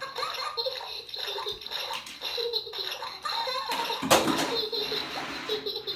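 A toy car's electronic sound effects and voice clips playing through its small, tinny speaker after it is touched. There is a sharp knock about four seconds in.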